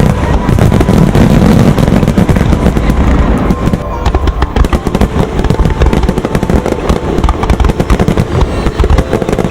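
Aerial fireworks bursting in rapid, dense succession: a continuous run of bangs and crackles with deep low booms.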